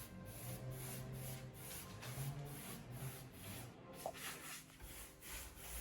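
Faint, rhythmic rubbing strokes of a brush over a lime-plaster surface, about two to three strokes a second: primer being brushed on.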